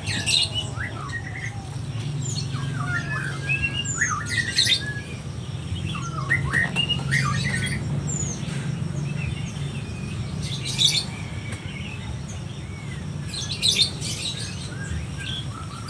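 Small birds chirping repeatedly in short calls over a low steady hum, with a few brief crinkles of a plastic bag as kittens eat off it.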